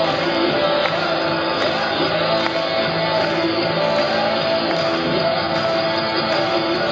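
Music with a steady beat, played over a stadium's public-address loudspeakers.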